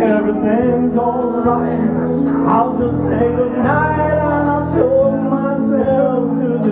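Men singing karaoke into a handheld microphone through the bar's sound system, over a backing track.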